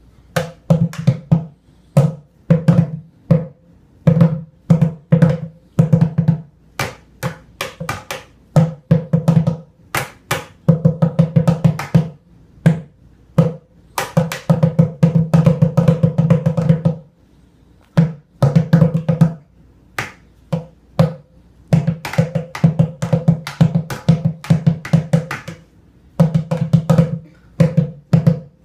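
Drumsticks beating fast rhythms on an upturned bucket played as a drum, the strokes low-pitched and hollow, in runs of quick hits broken by short pauses between phrases.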